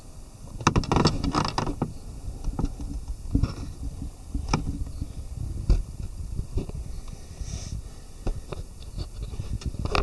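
Handling noise from a handheld camera being moved about: irregular scraping and rustling with sharp knocks and clicks, loudest in a dense cluster about a second in.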